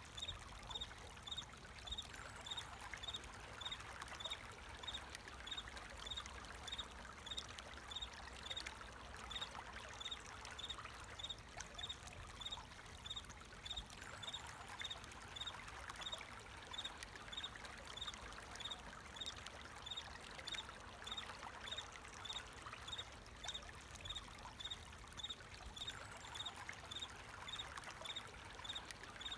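Water flowing and trickling steadily, with a cricket chirping in an even rhythm, about one and a half chirps a second.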